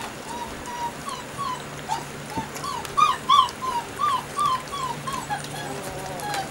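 Dogs whimpering: a string of short, high, whiny yelps at about two a second, loudest a little past halfway.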